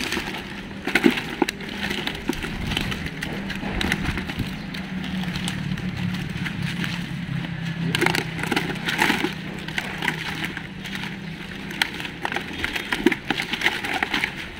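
Dry leaves and a nylon fish net crackling and rustling as hands work small tilapia out of the net and drop them into a plastic basin, with scattered light knocks. A steady low hum runs underneath much of it.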